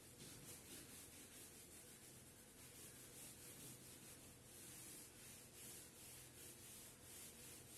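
Faint rubbing of an eraser swept back and forth across a whiteboard, wiping off marker writing in short repeated strokes.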